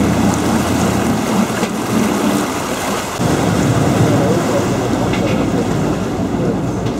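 Vaporetto water bus under way: a steady rumble of its engine and rushing water, with wind on the microphone, as it pulls in to a stop.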